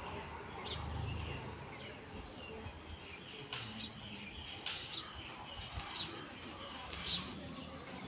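Small birds chirping: short high chirps about once a second, with a few sharp clicks among them.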